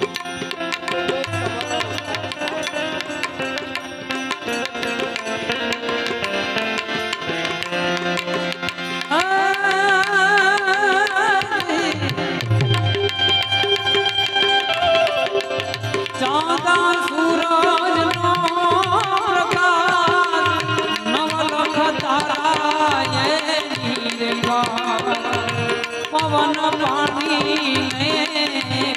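Instrumental interlude of a devotional bhajan: harmonium holding steady chords over a tabla rhythm, with a wavering lead melody line coming in about nine seconds in and again from about sixteen seconds.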